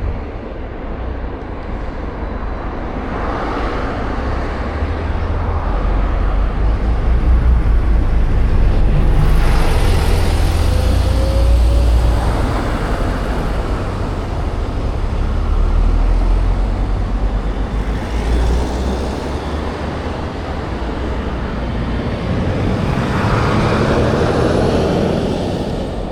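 Wind rumbling on the microphone of a moving e-bike, with road traffic noise that swells and fades several times.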